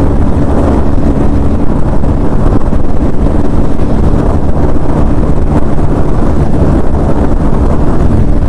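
KTM Duke 250's single-cylinder engine running hard at speed with a steady pitch. Wind rushes over the helmet microphone.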